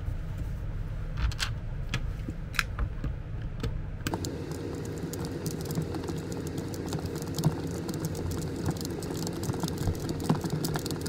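A screwdriver driving screws into the plastic case of an electric patient lift's control box: a run of small clicks and ticks. A steady low hum comes in about four seconds in.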